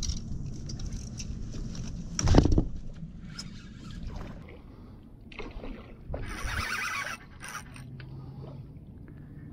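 Knocking and scraping handling noise, with one loud thump about two seconds in and bursts of rustling and scraping a few seconds later.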